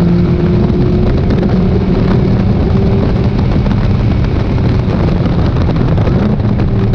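Lotus Elise engine pulling steadily at speed, its pitch climbing slightly about a second in, heard from the open cockpit over a dense rush of wind and road noise.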